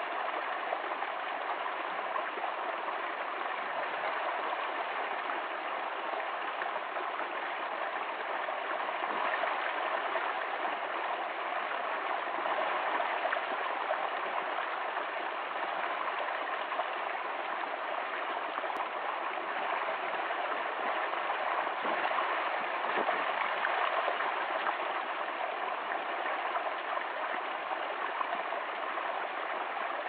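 Small forest stream pouring in thin falls over a log into a shallow pool, a steady, even rush of splashing and trickling water.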